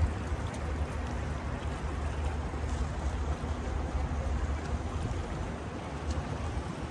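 Steady lakeside ambience: lake water lapping against the rocky shore over a constant low rumble.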